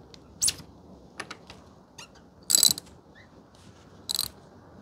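Socket ratchet wrench clicking in short bursts as a 24 mm socket works the fork cap loose on a motorcycle front fork; the longest, loudest run of clicks comes about two and a half seconds in.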